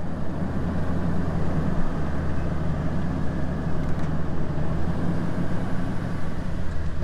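Pickup truck engine running steadily as the truck pulls away slowly, heard from inside the cab.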